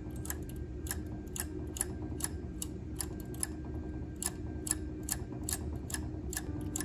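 The steel needles of a Silver Reed SK280 knitting machine clicking one at a time, about two to three a second, as each stitch is pushed by hand to the back of the needle bed to knit it off for an elongated stitch.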